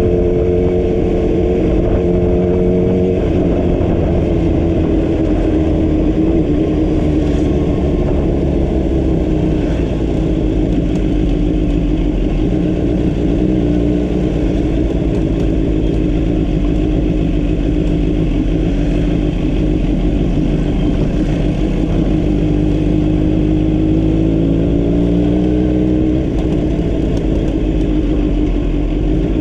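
A vehicle's engine running on the road over a steady rush of road and wind noise. The engine note drops about three seconds in, then climbs again near the end before falling back, as with throttle and gear changes.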